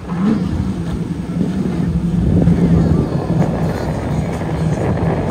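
High-performance catamaran powerboat's engines running at speed as it passes, a steady drone that grows louder about two seconds in, over a rush of spray and wind.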